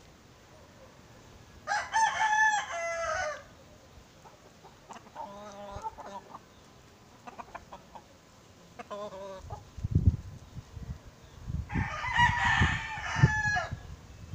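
Rooster crowing twice, two loud crows each lasting about a second and a half and about ten seconds apart, with shorter, fainter calls between them. Low thumps come in during the second half.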